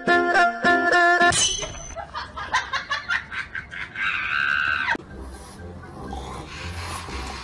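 Light plucked-string background music for about the first second, cut off abruptly. Then a jumble of other sounds, including a loud high-pitched cry lasting about a second near the middle, and a low steady hum near the end.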